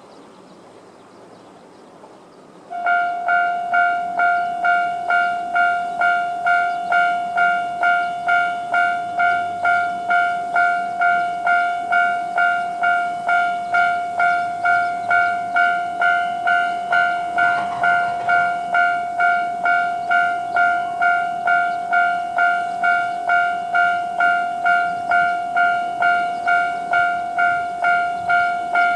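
Japanese railway level-crossing alarm bell starting up about three seconds in, then ringing steadily at about two dings a second: the warning that a train is approaching.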